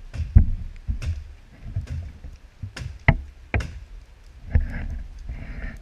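Irregular knocks and thumps, about two a second, some sharp and some dull and heavy: demolition work on an old camper.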